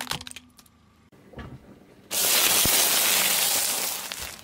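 Car tyre rolling over packaged wafer bars: a loud, dense crackling crunch of wrappers and wafers starting about two seconds in and lasting about two seconds. At the very start, a few sharp crackles as small plastic pieces give way under the tyre.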